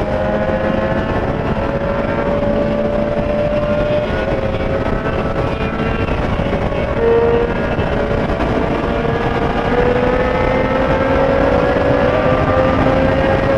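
Triumph Street Triple 765's inline three-cylinder engine running at highway speed, its pitch slowly climbing with two brief dips, under a steady rush of wind noise.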